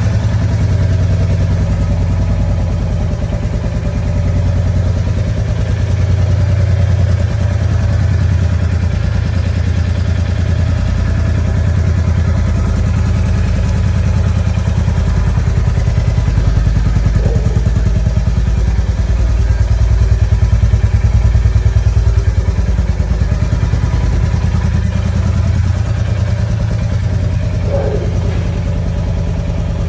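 Royal Enfield motorcycle engine idling through its exhaust: a steady, low, rapid beat that swells a little around twenty seconds in.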